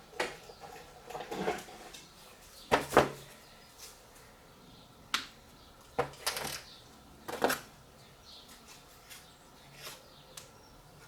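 Scattered knocks, clicks and clatters of small hard objects being handled and set down, with the loudest pair of knocks about three seconds in.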